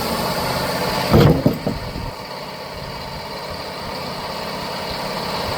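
Sawmill engine running steadily, with a few loud knocks about a second in; after them the high hiss drops away and the engine runs on more quietly.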